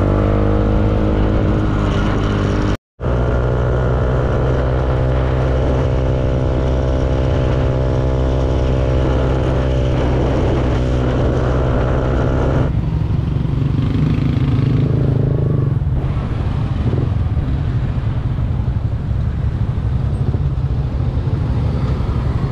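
Motor scooter engine running at a steady cruising note over road and wind noise, broken by a brief gap about three seconds in. About halfway through the steady tone gives way to a rougher low rumble as the scooter rides into slower traffic.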